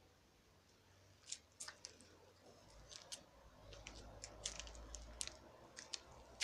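Faint, irregular sharp clicks and crackles, scattered unevenly from about a second in, over a faint low hum.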